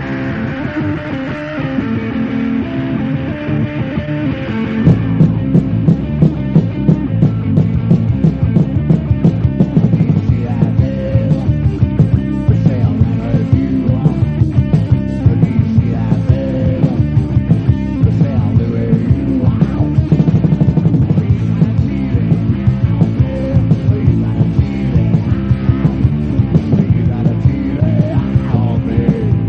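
Loud instrumental rock music with guitar and bass. A steady drum beat comes in about five seconds in.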